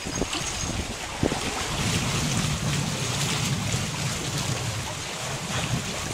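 Wind buffeting the microphone in a fluctuating low rumble over a steady wash of water, with a couple of light clicks in the first second or so.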